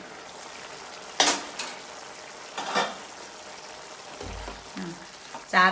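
Cauliflower curry sizzling steadily in a pan, its coconut-milk gravy cooked down thick, as the glass lid comes off and a spoon stirs it. There is a sharp clink about a second in and a softer one near three seconds.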